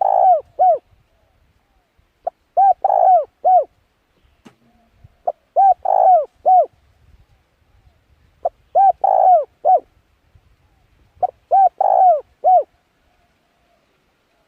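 A bird calling a short phrase of four or five low, arched hooting notes, repeated about every three seconds, five times, then stopping near the end.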